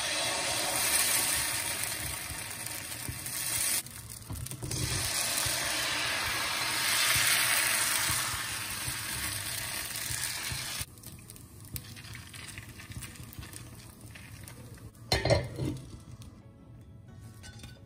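Appam batter sizzling in a hot appam pan as it is ladled in and swirled, with a short break about four seconds in. The sizzle falls away about eleven seconds in, and a glass lid clinks onto the pan about fifteen seconds in.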